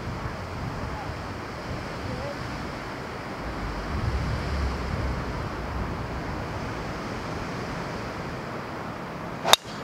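Strong wind rushing over the microphone, gusting up around the middle, then one sharp crack of a driver striking a golf ball off the tee near the end.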